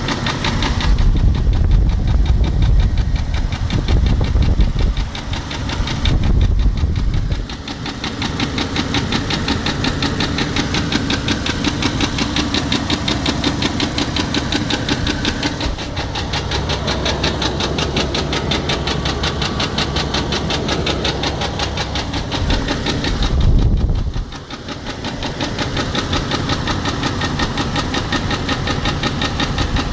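2003 Jeep Grand Cherokee's 4.0-litre inline-six running with a rapid, even knock, with a heavier low rumble for the first several seconds and again briefly around 24 seconds in. The owner can't tell whether the knock is a broken piston skirt, a rod knock or a loose timing chain guide.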